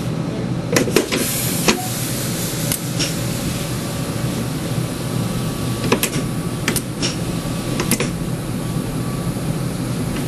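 Tram running with a steady hum, with scattered sharp clicks and knocks, several in the first three seconds and a few more later.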